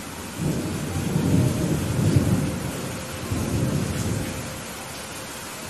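Steady rain hiss with a low rolling rumble of thunder. The thunder comes in about half a second in, swells twice, and dies away before the end.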